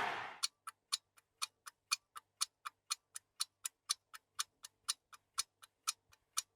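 Steady mechanical ticking, like a clock, at about four ticks a second.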